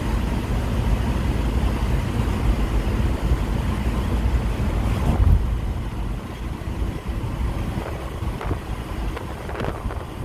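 Steady road and engine rumble inside a Volkswagen Eurovan's cabin at driving speed through a road tunnel. About five seconds in, the noise drops and loses its hiss as the van leaves the tunnel.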